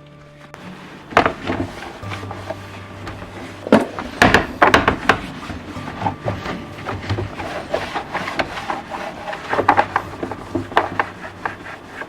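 Irregular knocks, clatters and rubbing of household objects being handled in a small room, heaviest about a second in, again around four to five seconds in and near the end, over faint background music.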